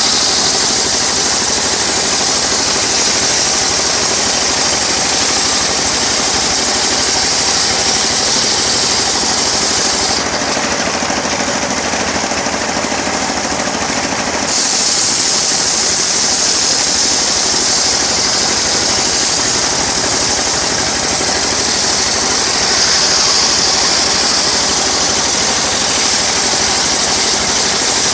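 Homemade engine-driven sawmill running steadily while its blade cuts through teak, with a loud high cutting hiss over the engine. About ten seconds in the cutting noise stops for some four seconds while the engine keeps running, then the cut resumes.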